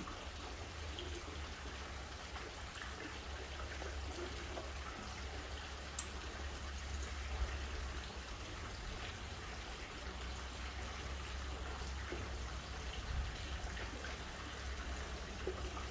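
Quiet room tone: a steady low hum with faint handling sounds and one sharp click about six seconds in.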